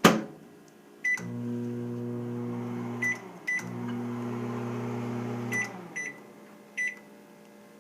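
Microwave oven: a sharp clack, then keypad beeps and the oven running with a steady low hum. The hum dips briefly after two more beeps, runs on, and stops about six seconds in amid further beeps.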